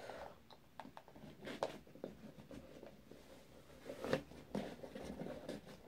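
Faint scattered rustles and soft knocks of a WW2 US M1A2 gas mask, rubberized fabric with elastic head straps, being handled and pulled on over the head.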